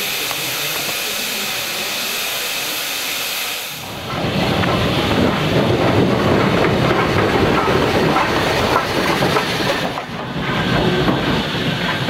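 Steam locomotives, LMS Fowler 3F 'Jinty' 0-6-0T tank engine 47406 double-headed with a second engine: a steady hiss of steam, then from about four seconds in a much louder, rough working sound with irregular knocks as the engines get moving.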